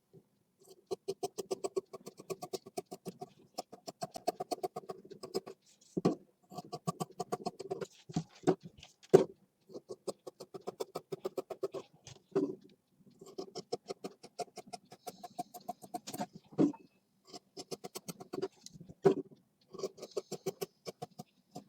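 Scissors cutting through cloth in runs of quick snips, about ten a second. The runs are broken every second or two by a louder single clack of the blades.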